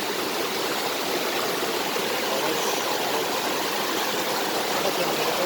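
Mountain creek rushing over rocks in a steady, even flow of water.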